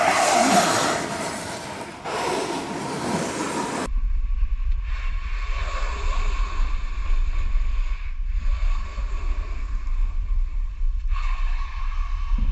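Wind buffeting the microphone over a loud rushing noise, with swelling, sweeping whooshes for the first few seconds; about four seconds in the sound changes abruptly to a heavy low rumble under a duller hiss.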